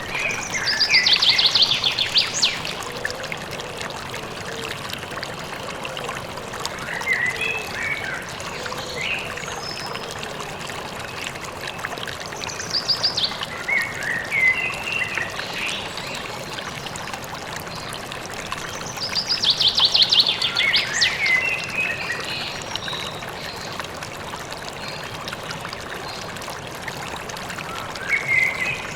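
River water flowing steadily, with songbirds singing over it: a long, rapid trilled song right at the start and another about two-thirds of the way through, and short chirped phrases in between.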